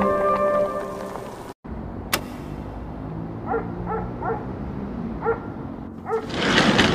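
Background music ends about a second and a half in. Then a small dog yaps about six times, and a wooden sliding door rattles open near the end.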